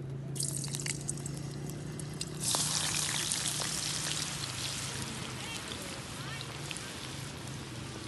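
Raw potato sticks frying in hot oil in a pan over a wood fire. The oil starts to sizzle and crackle about half a second in, then turns to a much louder, dense sizzle at about two and a half seconds, easing slowly after.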